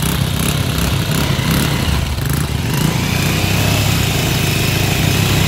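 Small motorcycle engine running steadily at low revs, the bike about to pull away on a front wheel made of plastic soft-drink bottles. A thin, steady high-pitched whine joins about three seconds in.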